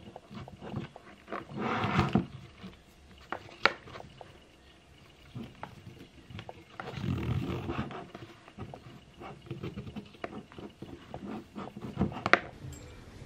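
Hands handling a Canon compact camera and its packaging: two stretches of rustling from the plastic bag and box, with scattered sharp clicks and taps from the camera and its wrist strap, the loudest about a second before the end.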